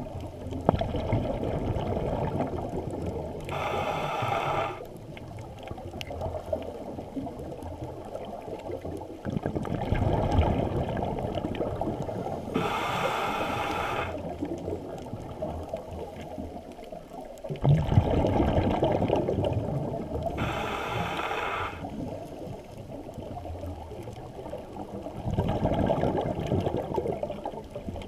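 Scuba breathing through a regulator, heard through an underwater camera housing: about three seconds of rumbling exhaled bubbles, then a short hissing inhalation, repeating about every eight seconds.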